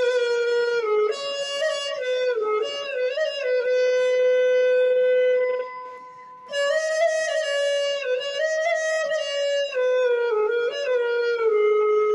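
Background music: a solo woodwind instrument playing a slow melody of long held notes with bending ornaments, with a brief breath-like pause about six seconds in.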